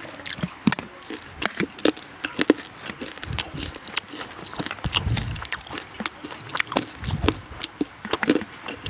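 Close-up eating sounds: a person chewing and crunching food, with many irregular sharp crunchy clicks and wet smacks. There are a few low muffled thuds about halfway through and again near the end.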